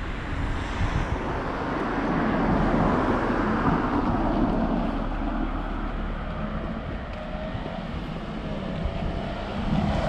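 Road traffic: cars driving by on the road alongside, a steady rush of tyre and engine noise that swells and eases, rising again near the end as another vehicle approaches.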